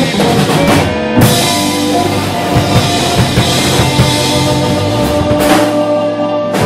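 Live blues band (electric guitars, bass guitar, keyboard and drum kit) playing the big finish of a song. About a second in, a cymbal crash opens a long held chord with busy drum fills underneath, and the piece closes on a final hit at the very end.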